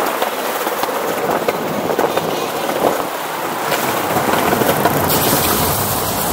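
Skateboard wheels rolling along a plank-decked boardwalk: a steady rumble with faint scattered clicks from the deck joints. A brighter hiss joins about five seconds in.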